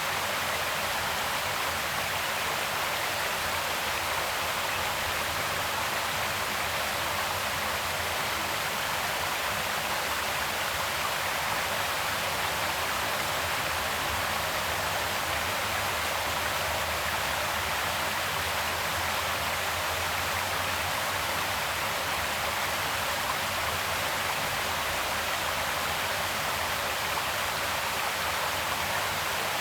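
Creek water flowing steadily, an even rushing.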